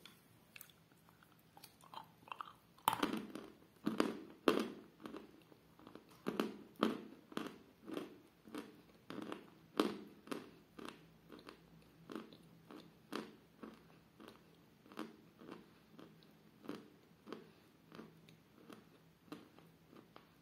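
A lump of edible chalk of the 'Damsky Kapriz' variety bitten and chewed: a loud crunching bite about three seconds in, then steady crisp crunches about twice a second that grow softer as the chalk is ground down.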